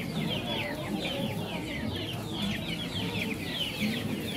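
Many caged chicks peeping nonstop, a dense stream of short, falling, high cheeps overlapping one another, over a low murmur of market voices.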